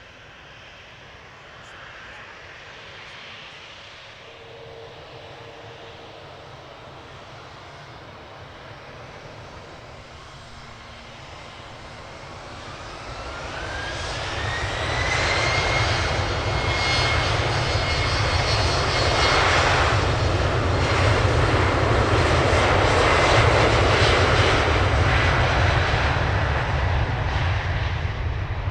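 Airliner engines spooling up: about halfway through, a whine rises in pitch and levels off into a loud, steady engine roar with a high whine on top.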